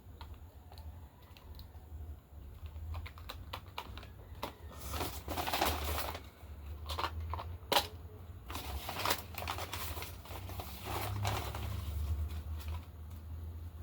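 Pharmacy bag and receipt being handled: irregular crinkling and rustling with scattered small clicks and taps, heaviest in two spells, over a low steady hum.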